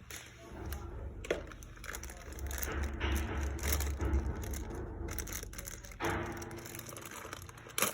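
Irregular scraping and crunching of hands and tools working on oil burner parts, over a low steady hum, with a sharp click near the end.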